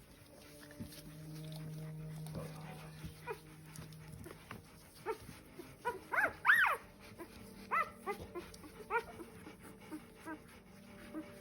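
Bernese mountain dog puppies squeaking and whimpering in short, high cries that rise and fall in pitch, the loudest a little past the middle. A low steady hum runs through the first few seconds.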